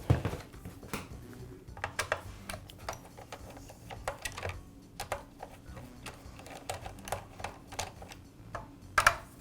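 Irregular light clicks and taps of hand tools working on a Makita cut-off saw as its starter assembly is unfastened and removed, with a louder clatter near the end.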